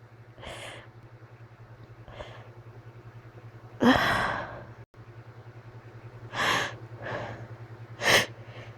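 A person's short gasping breaths and small sneezes in a sneezing fit, about six breathy bursts with the loudest about four seconds in. The sneezing is brought on by an allergy to cats.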